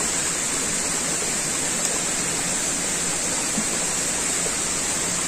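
Steady babbling of a shallow stream running over rocks: a continuous, even rush of water.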